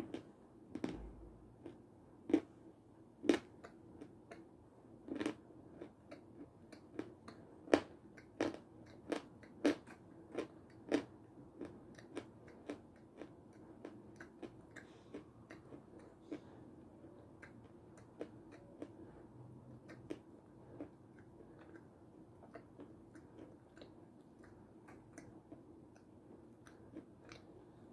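Close-miked chewing of a homemade Raffaello-style sweet ball: wet mouth sounds with sharp crunchy clicks. The clicks come thick and loud for the first dozen seconds or so, then grow sparser and fainter as the mouthful is eaten down.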